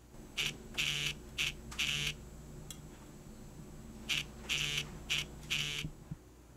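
Mobile phone ringing with an incoming call: a buzzy electronic ring of four pulses, short-long-short-long, repeated twice about four seconds apart.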